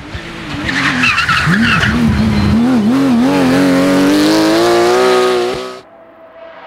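Tyres squealing as a Porsche 911 race car corners hard, its flat-six engine wavering in pitch with the throttle, then revving up steadily. The sound cuts off sharply near the end, and a quieter car engine is heard approaching.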